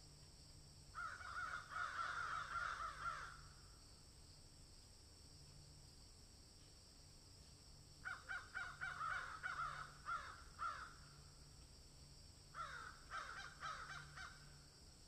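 An animal calling in three bouts of quick, repeated harsh calls, each lasting two to three seconds: about a second in, about eight seconds in, and again near the end, over a steady high hiss.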